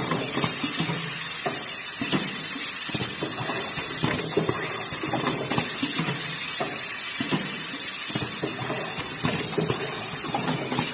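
Automatic filling and packaging machine for pet-food meat puree running, a steady hiss with many quick, irregular clicks and knocks.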